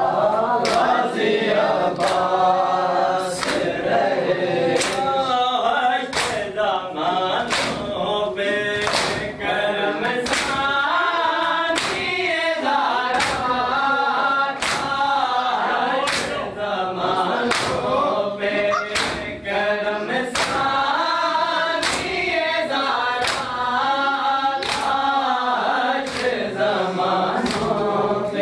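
Group of men chanting a noha in unison while beating their chests (matam), with sharp slaps landing in a steady rhythm of about three every two seconds.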